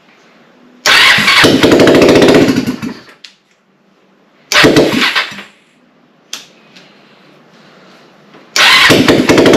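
Kawasaki Lakota ATV's single-cylinder four-stroke engine, running with no exhaust fitted, started three times on a freshly rebuilt carburetor with the choke set: each time it fires and runs loudly for one to two seconds, then dies, with the idle set too low to keep it running.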